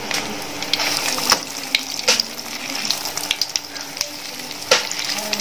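Breaded egg kebab deep-frying in a little hot oil in a steel kadai: a steady sizzle with frequent sharp crackles and clicks.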